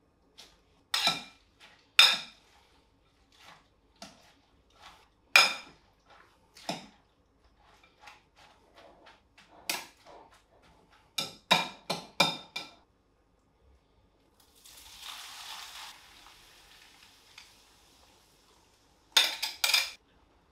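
Metal tongs clinking and knocking against a glass bowl as shredded cabbage is tossed with beaten egg, in irregular sharp strikes. Past the middle comes a short sizzle of the mixture in a hot oiled frying pan, then a quick run of taps from a spatula in the pan near the end.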